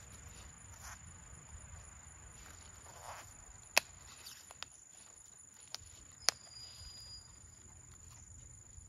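Sharp plastic clicks as the snap-shut halves of a plastic air-layering ball are pried open, the two loudest about four and six seconds in, with a few fainter ones between. Under them a steady high insect chirring.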